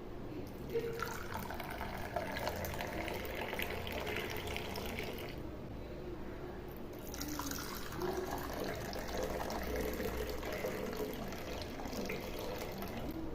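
Liquid being poured, in two runs: one of about four seconds starting about a second in, then, after a pause of about two seconds, a second run lasting about six seconds.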